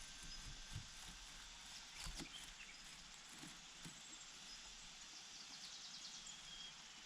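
Faint outdoor ambience: a steady hiss with scattered soft rustles and knocks, one sharper click about two seconds in, and a brief quick run of faint high ticks near the end.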